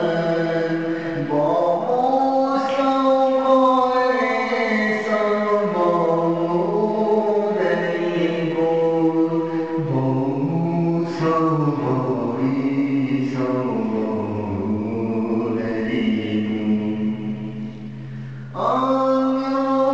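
Devotional vocal chanting in long, drawn-out held notes that slowly bend in pitch, with a steady low tone beneath in the second half. The chant fades briefly near the end, then resumes.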